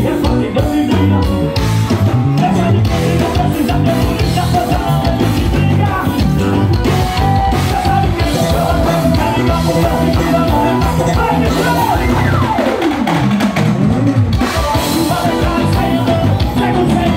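A live evangelical praise band playing amplified music through a PA system: drum kit, electric guitar, bass and keyboard, with singing. About two-thirds of the way in, a sliding tone falls steeply in pitch over the music.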